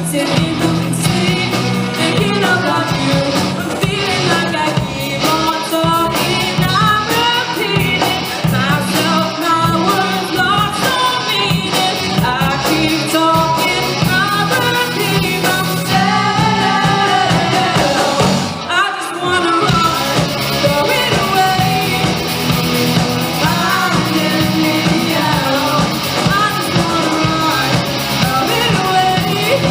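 Live rock band playing a song: a lead vocal sung over electric guitars, bass and drums, with a brief drop in the music about two-thirds of the way through.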